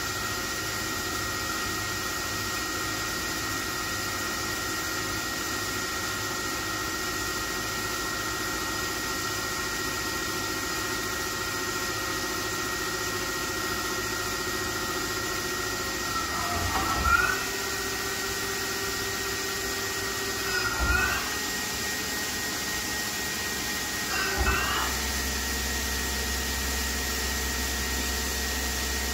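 Okuma LB35 II CNC lathe running a program: a steady hum from its motors and hydraulics, broken a little past halfway by three short whines that rise and fall in pitch as the tool turret moves.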